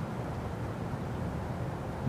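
Steady low outdoor background rumble, with no siren tone sounding.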